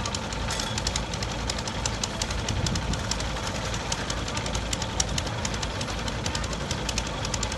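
Small boat engine running steadily, with a rapid run of sharp, uneven ticks over a low rumble.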